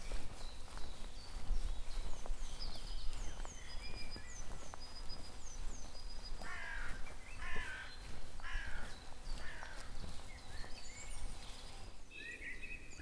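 Woodland birdsong: small songbirds repeating short, high, falling whistled notes, while a crow gives about four harsh caws in the middle.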